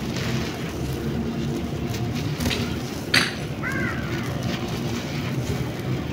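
Dry moulded sand being crumbled by hand: grainy crunching and rustling as the lump breaks, with sand pouring and trickling out between the fingers. One sharp crunch about three seconds in.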